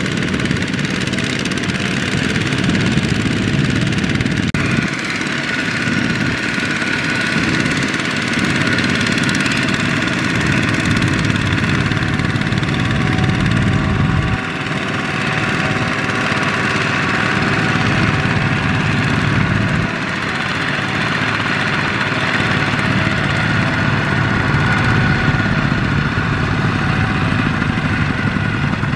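Single-cylinder diesel engine of a two-wheel power tiller running steadily while pulling a trailer loaded with rice sacks. The sound shifts abruptly a few times along the way.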